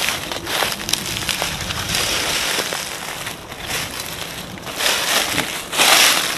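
Footsteps crunching through dry fallen leaves and twigs, an irregular rustling with sharp snaps.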